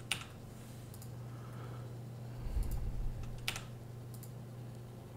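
A few sparse, separate clicks of computer keys, over a steady low electrical hum.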